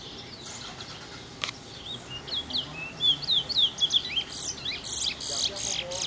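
Caged songbird singing: a quick run of short chirps and sliding whistles, sparse at first and then denser and louder from about two seconds in. A single sharp click about a second and a half in.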